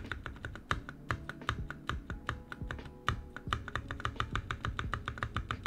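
Rapid keystrokes on a freshly built NovelKeys NK65 Entry Edition 65% mechanical keyboard, being typed on to test its sound. The key presses sound minty, the keyboard builder's word for a clean, pleasing keyboard sound.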